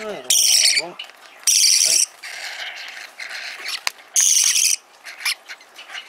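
Hand-fed parrot chicks giving harsh, raspy begging calls while being spoon-fed. There are three loud calls of about half a second each, with softer scratchy calls between them.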